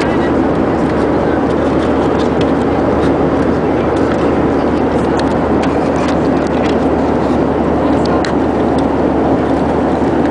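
Steady in-flight cabin noise of a Boeing 737-700 airliner. Scattered light clicks and crinkles come from a plastic-wrapped headphone packet being handled close to the microphone.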